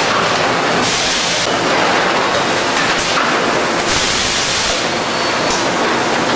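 Lyle thermoforming line running: a loud, steady mechanical noise, with two louder bursts of hiss, one about a second in and one around four seconds.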